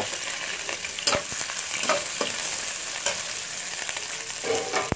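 Sliced garlic, shallots and red chillies sizzling in hot oil in a non-stick wok, stirred with a metal slotted spatula that clicks and scrapes against the pan several times.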